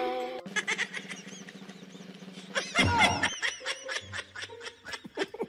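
A person giggling and snickering.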